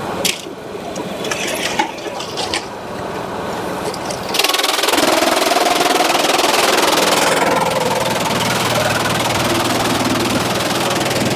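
Sawmill machinery: a few knocks and clanks over a running machine, then about four seconds in a saw starts cutting into a log, a sudden loud steady cutting noise with a whine that holds on.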